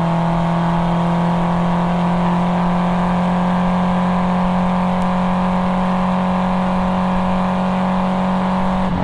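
Nissan 240SX's 2.4-litre KA24DE inline-four, breathing through a cat-back exhaust with a resonator, pulling hard in one gear, its note climbing slowly and steadily. The note falls away right at the end as the throttle comes off.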